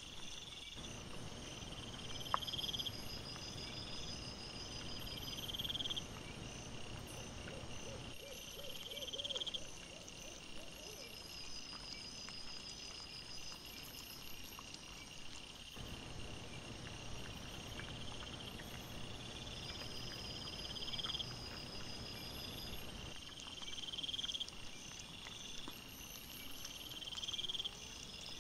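Crickets chirping in short rising trills repeated every second or two, over low rustling and crunching from wild boar rooting and feeding in leaf litter.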